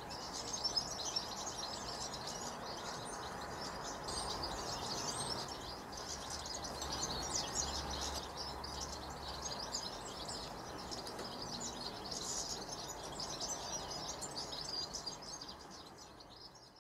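A flock of European goldfinches twittering, with many quick high chirps overlapping continuously over a steady hiss of rain. The sound fades out near the end.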